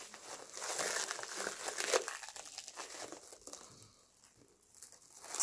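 Clear plastic stretch wrap being pulled and torn off by hand, crinkling busily at first, then thinning to a few faint rustles before picking up again near the end.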